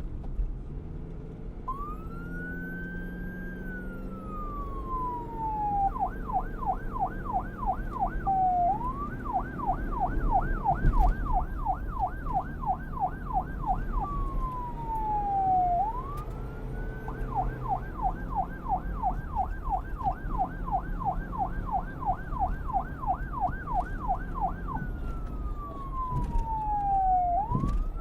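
Police car siren switching between a slow wail, rising and then falling over several seconds, and a fast yelp of about three quick up-and-down sweeps a second, changing back and forth three times. A low vehicle rumble runs beneath it.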